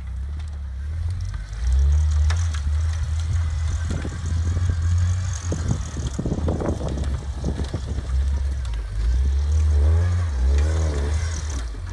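Off-road vehicle's engine running under load as it drives through snow and brush, with a burst of knocks and crackling around the middle and the engine revved up and down twice near the end.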